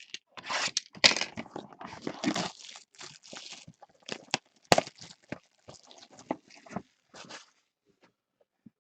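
Trading-card box packaging being torn open by hand: a run of irregular tearing, crackling and crinkling rasps with sharp snaps, stopping about a second before the end.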